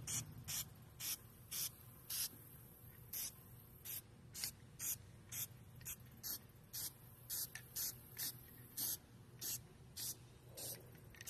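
Aerosol spray-paint can hissing in short spurts, about two a second, as black paint is sprayed onto a plastic skull.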